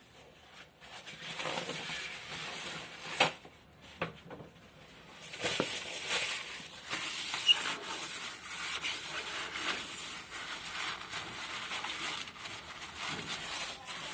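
Handling noise from hands working on parts: uneven rustling and rubbing with scattered clicks, a sharp click about three seconds in and another about five and a half seconds in.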